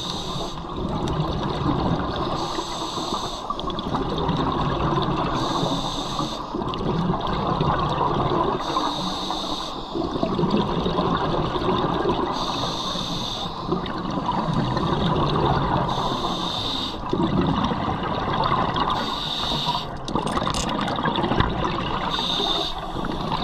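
A scuba diver breathing through a regulator underwater: a bubbling hiss of exhaled air about every three seconds, each burst lasting about a second, over a steady underwater rumble.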